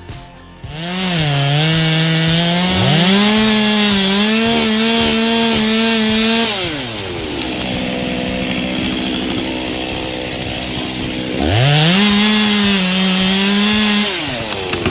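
Two-stroke chainsaw engine revved to full throttle and held for several seconds, dropping back briefly, then revved and held again.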